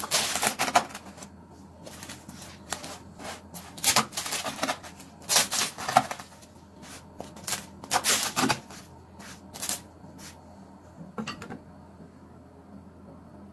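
Kitchen handling noise: about seven short bursts of sharp clicks and crackles, a second or two apart, over a faint steady low hum.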